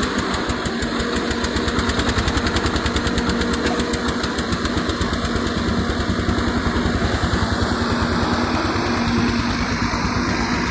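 Diesel engine of a Shantui SE90-9 crawler excavator running under load while the machine digs, with a rapid, even throb. The throb gets stronger about two seconds in.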